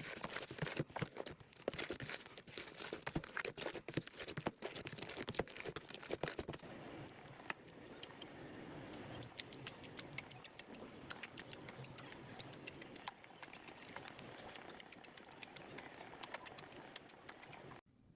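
Slime being squished and worked by hand: a dense run of sticky clicks and small pops, thinning after about seven seconds into sparser, sharper ticks over a soft crackle.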